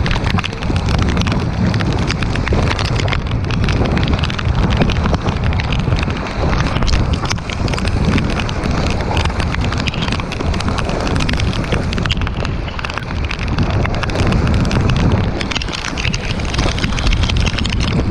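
Heavy wind noise on a kayak-mounted camera's microphone in a rain squall, with a constant spatter of rain and spray and water rushing and splashing along the kayak's hull.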